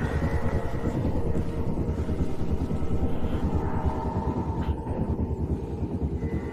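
Low, steady rumble with a rapid fluttering texture, from an animated fight scene's sound effects, with a faint thin high tone above it at times.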